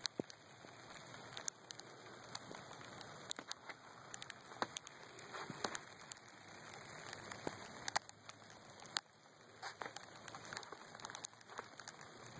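Sleet and small hail ticking on the ground and nearby surfaces: scattered, irregular sharp clicks over a soft steady hiss.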